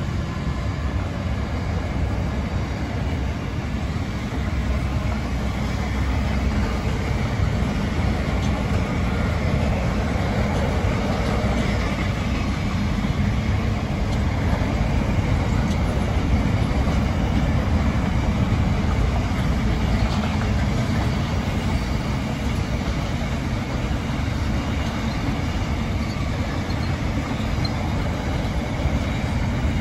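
Container wagons of a freight train rolling past: the steady noise of steel wheels running on the rails, even in level throughout.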